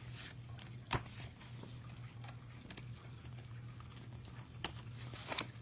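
Faint handling of a picture-book page as it is turned: light paper rustles, a sharp tap about a second in and a few soft ticks near the end, over a low steady hum.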